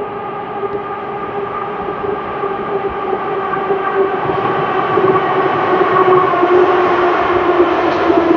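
Metro train approaching and entering the station platform: a steady whine over rumbling rail noise, growing louder throughout, the whine dropping slightly in pitch near the end as the train pulls in and slows.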